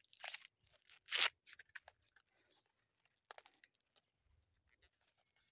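The husk of a fresh maize ear being torn open and peeled back by hand: a few crisp tearing sounds, the loudest about a second in, with soft crackling in between.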